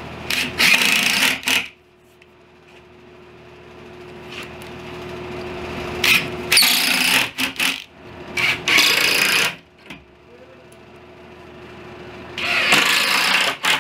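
Cordless drill running in four short bursts of about a second each, pre-drilling and driving screws into the cabinet panel. A steady hum runs underneath between the bursts.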